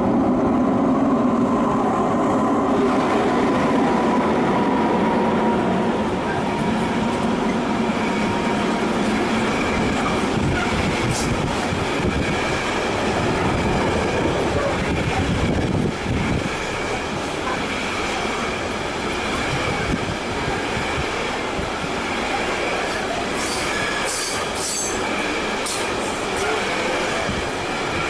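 Freight train of container wagons hauled by two electric locomotives passing close by: a steady, loud rumble of wheels on rails. A thin high squeal from the wheels comes in after about eight seconds.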